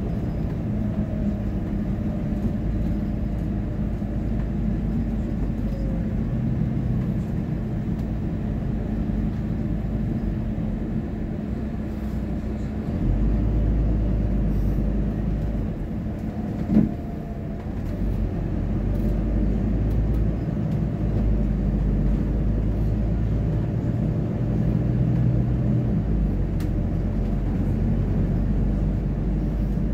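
Double-decker bus driving, heard from the upper deck: a steady engine drone and road rumble, the low engine note stepping up and down several times as it works through the gears. One sharp knock a little past halfway.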